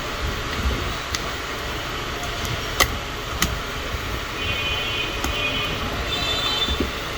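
A few sharp plastic clicks, the loudest about three seconds in, as the camera battery's plastic casing halves are handled and pressed shut, over a steady background hum. A faint high-pitched whine joins in the second half.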